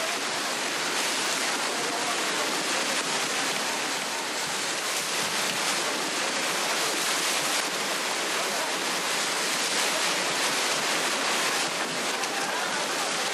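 Heavy, steady rush of splashing water as a shoal of bluefin tuna thrashes at the surface inside a closed fishing net.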